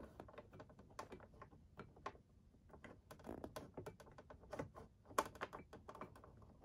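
Faint, irregular clicks and taps of plastic wiring connectors and wires being handled and pushed together inside a plastic car center console, the sharpest click a little after five seconds in.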